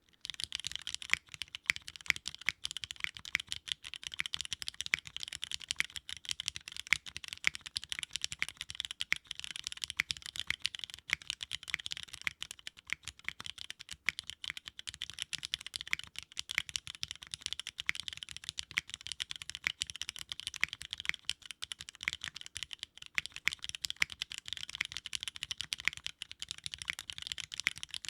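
Continuous fast typing on a Sangeo65 custom mechanical keyboard with linear Cherry MX Black switches, an aluminium plate, no foam and GMK Minimal keycaps: a dense, steady stream of keystroke clacks.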